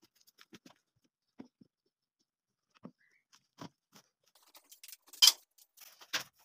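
Scattered light taps and clicks of a person moving about and handling small tools, with two sharper clicks near the end.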